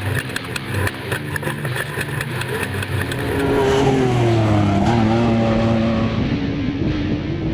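Off-road race vehicle's engine running hard. About halfway through its pitch drops, then it holds fairly steady.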